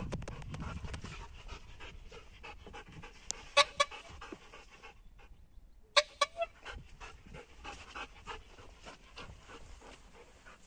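Belgian Malinois panting rapidly while heeling, with a few louder sharp, short sounds about three and a half seconds in and again at about six seconds.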